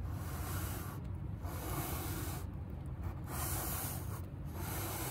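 Cardboard boxes being slid against each other and over a surface by hand, rubbing in repeated strokes of about a second each, over a low steady hum.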